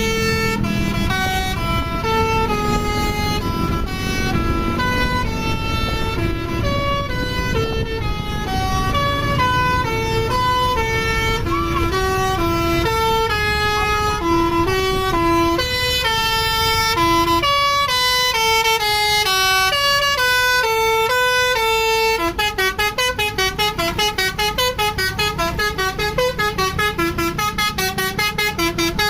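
Bus basuri telolet horn, a multi-tone musical air horn, playing a melody of held notes over the low rumble of the bus engine. About 22 seconds in, the notes turn into a rapid run of short staccato toots.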